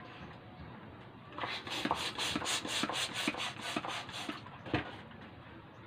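Hand balloon pump worked in quick, even strokes, a rasping rush of air with each stroke for about three seconds as it inflates a latex balloon. A single knock follows near the end.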